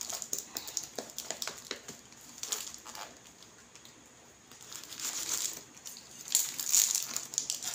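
Crinkly silver wrapping around a plant pot crackling as hands handle and turn the pot, in many short crackles, with a quieter stretch near the middle.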